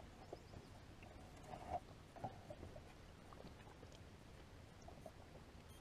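Near silence on a boat, with a few faint knocks and taps of footsteps and gear on the deck, the loudest about two seconds in.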